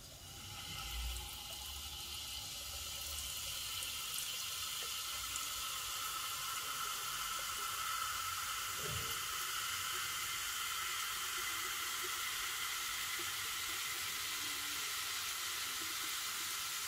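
Sprite lemon-lime soda poured in a steady stream from a can into a glass mug over ice, the carbonated soda fizzing and foaming as the glass fills. The sound holds steady throughout.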